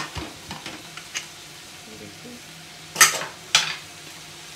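Pressure cooker lid being unlocked and lifted off: a few light metal clicks, then two sharp metallic clanks about three seconds in, over a faint sizzle from the wok of onion and tomato.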